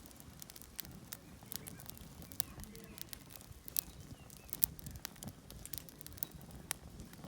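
Wood fire crackling: scattered sharp pops and clicks at an irregular pace over a faint background.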